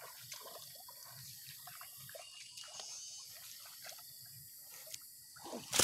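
Faint sloshing and dripping of shallow muddy water as a person wades through it on foot.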